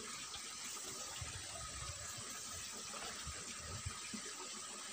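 Faint steady outdoor background hiss, with a few soft low thumps.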